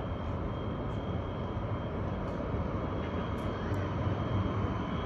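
Steady low rumble of city street background noise, with a faint steady high-pitched whine.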